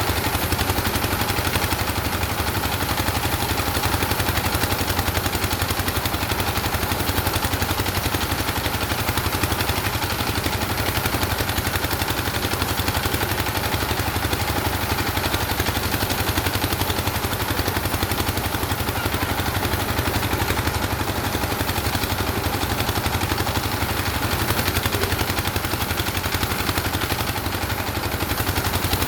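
An engine running steadily at a constant speed, a fast, even chugging with a steady hum over it.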